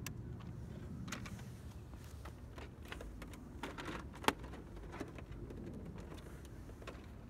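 Scattered light clicks and taps of a plastic 1:6 scale RC Mini Cooper body being handled, with one sharper click about four seconds in, over a low rumble.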